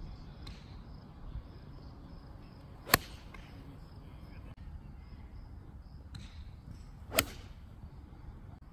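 Golf club striking a ball twice, two sharp cracks about four seconds apart, each followed by a brief high swish.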